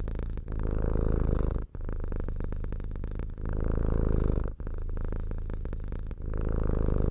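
Tabby cat purring in a continuous pulsing rumble that goes louder and softer in turn, with a louder stretch about every three seconds.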